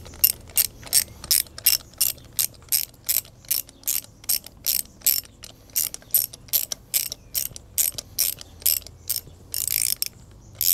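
Socket ratchet clicking in short, quick strokes, about three a second, as a new spark plug is wound into the cylinder head, with a longer run of clicks near the end.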